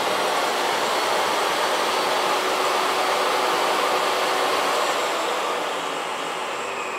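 Jobsite table saw running at full speed, a steady even motor and blade whine with no cutting, easing slightly in level near the end.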